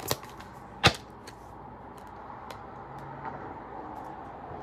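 Tarot cards being handled: a few light card clicks, then one sharp tap about a second in, followed by faint steady room noise with an occasional soft tick.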